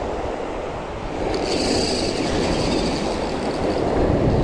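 Surf washing on the shore. From about a second in, the drag of a Shimano Twin Power 6000 spinning reel gives a high, finely ticking buzz as a hooked fish pulls line off.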